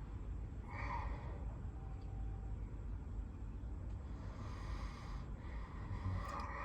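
A person's drowsy breathing and wordless vocal sounds on waking: one short sound about a second in, then a longer drawn-out one near the end, over a steady low rumble.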